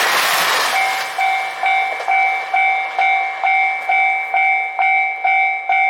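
Passing train's rushing noise fading out in the first second, then a Japanese railway level-crossing warning bell ringing steadily at about two strikes a second.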